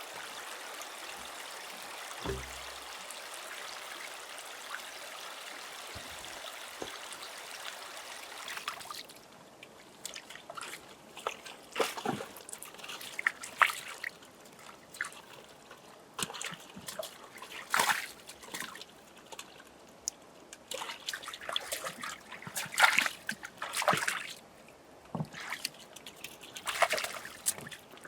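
Steady trickling, running water for about nine seconds, then a sudden change to irregular sloshing and splashing in shallow water, with several sharper splashes.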